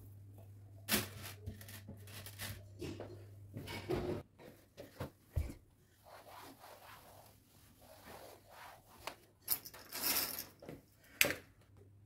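A cloth wiping furniture and the floor's edge: short, uneven rubbing strokes with scattered light knocks and clicks, the sharpest about eleven seconds in.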